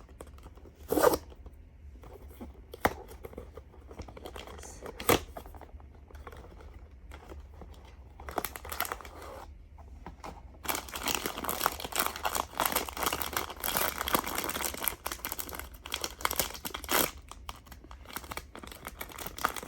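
A blind box being opened by hand: a few sharp snaps and clicks of the cardboard box in the first five seconds, then the wrapper inside torn open and crinkled for several seconds from about ten seconds in.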